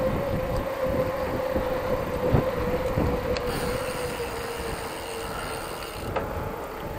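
Knobby mountain-bike tyres humming on a paved road: one steady tone that slowly drops in pitch as the bike loses speed. Wind rumbles on the microphone underneath, with a few knocks from the ride.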